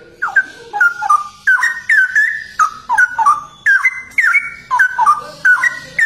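Straw-headed bulbul (cucak rowo) singing a loud, fast stream of liquid whistled notes, each sliding downward, two to three a second without a break.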